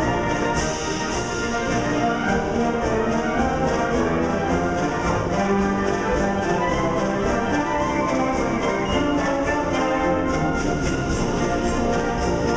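Concert band of woodwinds and brass playing, with a steady beat.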